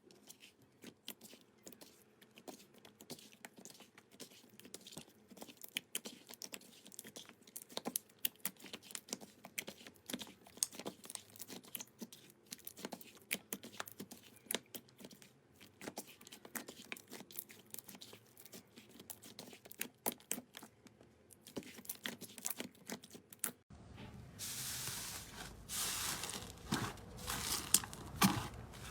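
Slime being squeezed and stretched by hand, making dense, irregular sticky clicks and pops. About 24 seconds in, a cut brings a louder, denser crackling and crinkling.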